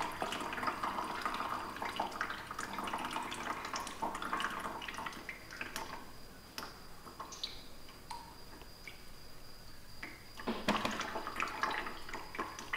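Silver chloride slurry being poured from a plastic bottle into a coffee filter in a plastic strainer, trickling and splashing with a few drips. The flow eases off in the middle and picks up again near the end.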